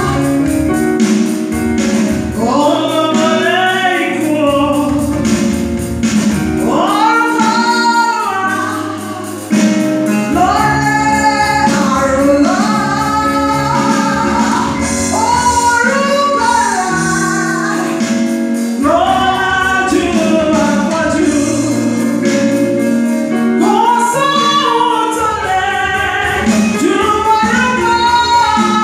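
A woman leads a gospel worship song into a microphone over an amplified accompaniment, with the sung melody rising and falling over held low notes and a steady beat.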